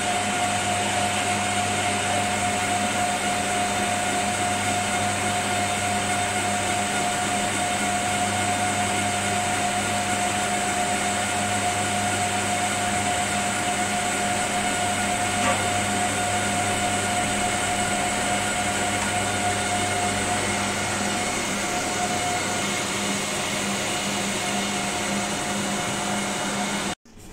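Steady hum of a running electric machine: an even whine over a low drone, cutting off suddenly near the end.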